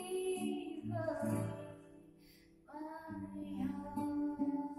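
A woman singing a slow melody over acoustic guitar accompaniment; the singing pauses about two seconds in and comes back with long held notes.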